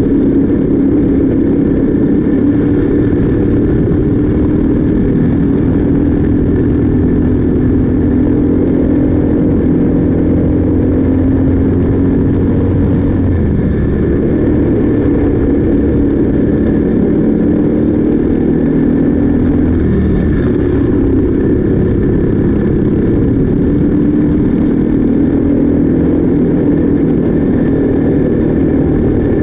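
Onboard sound of a Briggs & Stratton LO206 single-cylinder four-stroke kart engine running under race load, its pitch falling and rising as the throttle comes off and back on through the corners.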